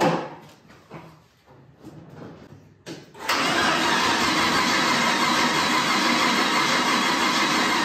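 Starter cranking the turbocharged 4.8 L LS V8 steadily for about five seconds, beginning about three seconds in, without the engine catching. The engine has just had a heavy dose of brake cleaner, which the owner blames for fouling the new spark plugs. A thump and a few small knocks come before the cranking.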